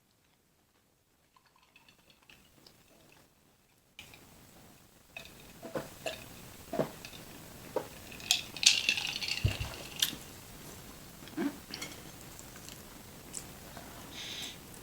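Close-miked eating sounds: cutlery clicking and scraping against a plate, with chewing. Near silent at first, the clicks begin about four seconds in and are densest in the middle, with one low thump.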